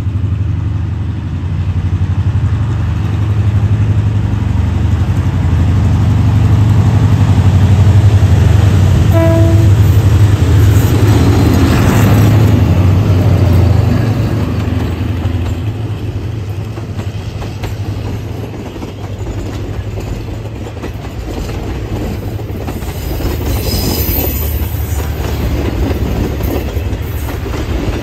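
Thai Hitachi diesel-electric locomotive No. 4516 passing with express train 85. The engine's low drone builds and is loudest about midway, with a brief horn toot about nine seconds in. Then the coaches roll past with a steady clatter of wheels on rail.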